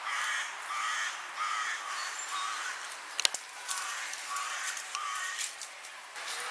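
A crow cawing repeatedly in a steady run of short calls, with one sharp click about halfway through.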